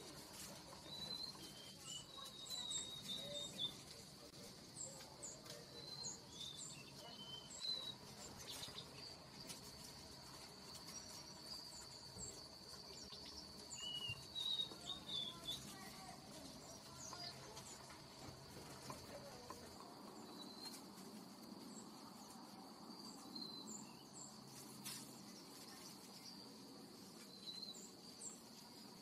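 Faint outdoor ambience: a steady high insect trill starts about a third of the way in and holds, with scattered short high chirps over it.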